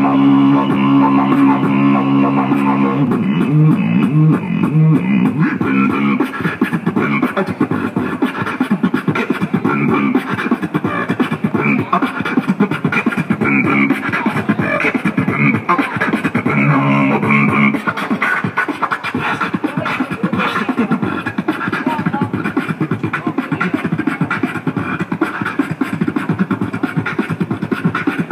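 Live beatboxing into a handheld microphone: a held, low buzzing bass tone opens and returns about two-thirds of the way through, and fast vocal drum beats fill the rest.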